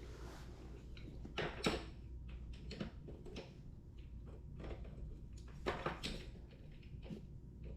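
Scattered light knocks, clicks and rubbing from hands working scooter tire and wheel parts, with a clear knock about one and a half seconds in and two more near six seconds.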